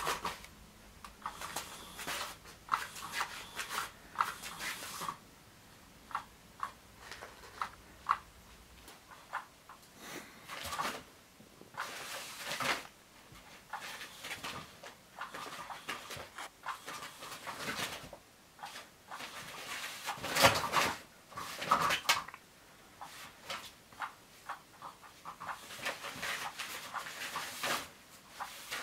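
Rustling, scratching and clicking from the fabric cover of a rotary cat toy as a cat paws and pounces on it, coming in irregular bursts. The loudest burst comes about two-thirds of the way through.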